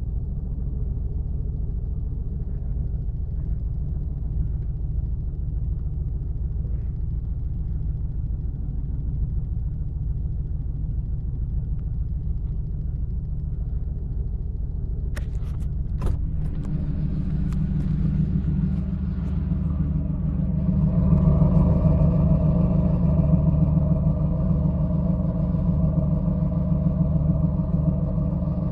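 GM LS1 5.7-litre V8 running with a misfire, a steady low drone. About halfway through there are two sharp clicks, after which the engine runs louder and fuller, climbing again a few seconds later and holding there.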